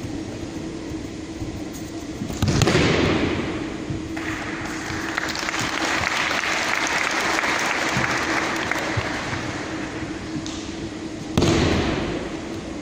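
A heavy thud of a body breakfalling onto the tatami mat about two and a half seconds in, echoing in the large hall, followed by several seconds of audience applause. Another thud on the mat comes near the end.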